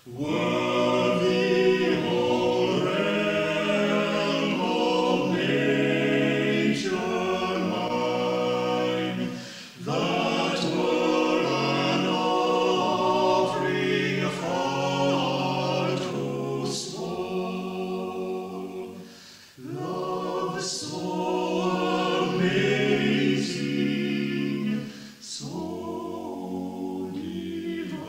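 Amateur choir singing unaccompanied, several long held phrases with brief pauses between them, heard from an old reel-to-reel tape recording.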